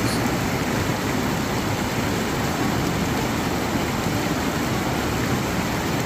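Mountain stream rushing and cascading over boulders: a steady, even rush of white water.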